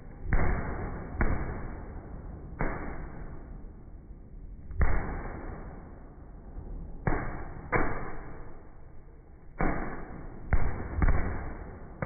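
Aerial firework shells bursting: about nine sharp bangs at uneven intervals, each trailing off over a second or more.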